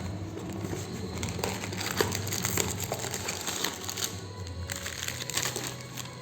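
Plastic snack packets crinkling in irregular crackles as they are handled, over background music.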